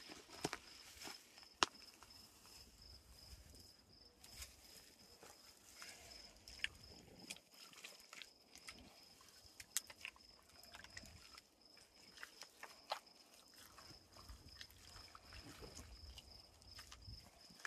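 Faint, scattered squelches and taps of wet clay-and-straw mud being worked by hand, over a steady faint high-pitched whine.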